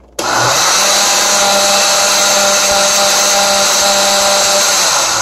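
Countertop blender on its fruit smoothie setting blending a thick banana and chocolate almond milk smoothie: the motor kicks on abruptly just after the start, runs at a steady high whine, and begins to wind down right at the end.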